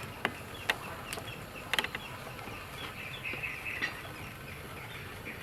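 Short, repeated bird calls and clucks, like poultry, over a steady background, with a few sharp clicks in the first two seconds.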